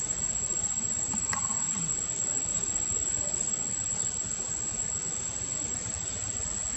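Steady background hiss, with a brief faint chirp about a second in.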